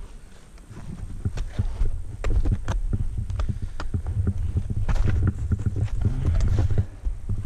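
Crunching kicks of crampon-shod mountaineering boots and ice-axe placements biting into hard snow, an irregular run of short crunches and scrapes, over a low rumble on the body-mounted camera.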